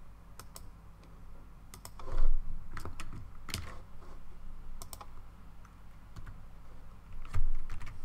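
Computer keyboard being typed on in irregular short runs of key clicks, with a couple of louder key strikes around two seconds in and near the end.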